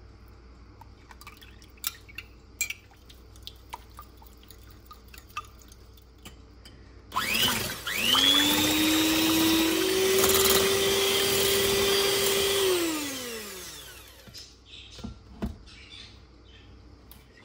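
Electric hand mixer starting up, its motor whine rising as it gets to speed, stepping up once to a higher speed and running steadily with its beaters whisking eggs and oil in a glass bowl, then winding down as it is switched off. A few light clicks come before it and a couple of knocks after.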